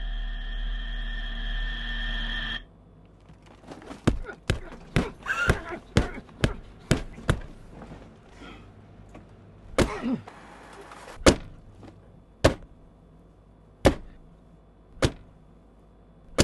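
A steady hum cuts off suddenly. Then comes a string of sharp, heavy thuds, about nine in quick succession, then slowing to single thuds a second or more apart.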